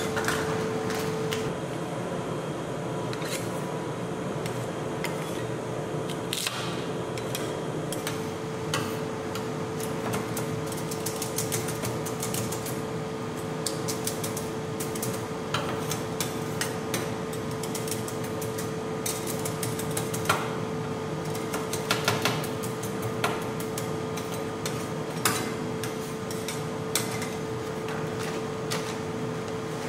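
Two metal spatulas chopping potato chips on a steel cold plate: irregular sharp taps and crunches, the loudest ones coming in a cluster in the second half. A steady hum runs underneath throughout.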